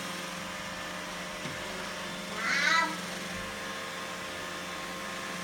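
A cat meows once, about two and a half seconds in, a short wavering call. Under it runs the steady hum of a Roomba 965 robot vacuum.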